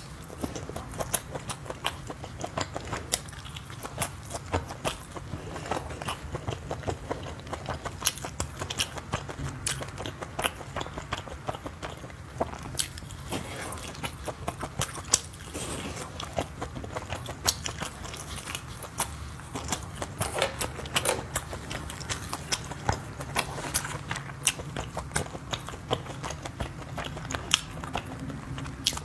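Biting and chewing of spice-coated grilled skewers, a constant run of irregular sharp crunchy clicks with no pause.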